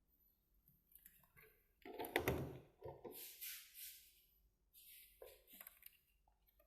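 Faint, scattered knocks, taps and scraping handling noises, with a louder scrape or rustle about two seconds in.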